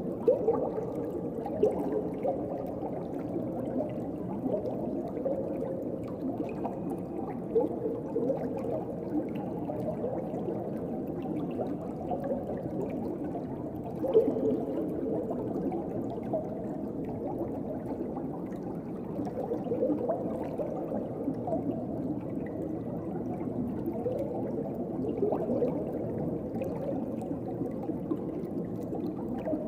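Underwater ocean ambience: a steady, muffled wash of moving water with bubbling and gurgling, and a few brief louder gurgles.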